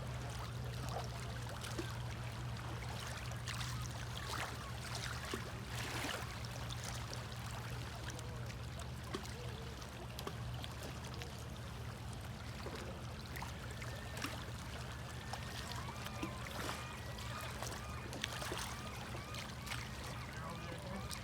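River water running steadily, with a low rumble and scattered small clicks and splashes. In the second half a faint run of short, evenly repeated high notes comes in.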